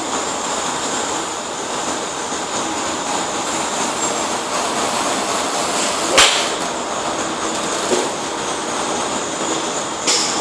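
Steady background noise at a driving range, cut about six seconds in by the sharp crack of a golf club striking a ball from another hitter, with a smaller click near the end.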